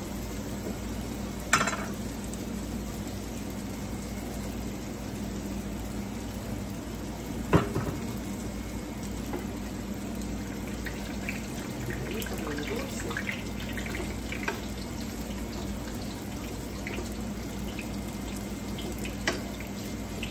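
Ripe plantain slices sizzling steadily in hot oil in a frying pan, with three sharp knocks of a utensil against the pans as they are turned: about a second and a half in, about seven and a half seconds in, and near the end.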